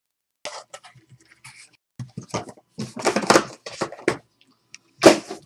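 Trading-card box and packaging being handled and opened: irregular rustling, crinkling and scraping, loudest about three seconds in and again near the end.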